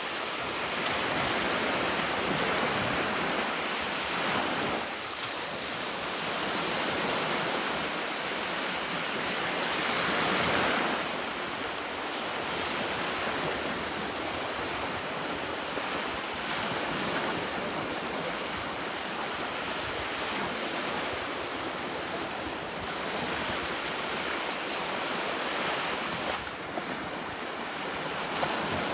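Sea waves washing on the shore: a continuous surf wash that swells and eases every several seconds.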